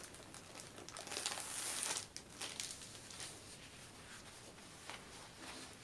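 Plastic packaging crinkling and rustling as it is handled and unwrapped, loudest about one to two seconds in, with scattered crackles.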